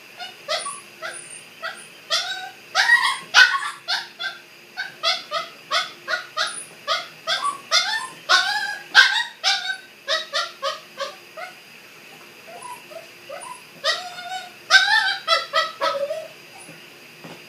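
Three-month-old Dachshund–Miniature Pinscher mix puppy whining, about two short high cries a second, each rising then falling. The cries go faint for a couple of seconds past the middle, then come back louder for a short burst.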